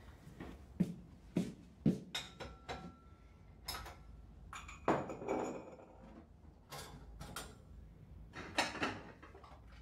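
A few soft footsteps, then dishes and a pot clinking and knocking at a kitchen counter in separate clatters, some with a short ring.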